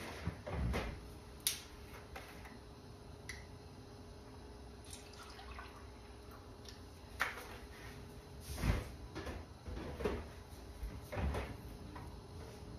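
Kitchen handling sounds: a refrigerator door opened, milk poured from a plastic gallon jug into a glass measuring cup, and scattered knocks and clunks as the jug and cup are handled and set down.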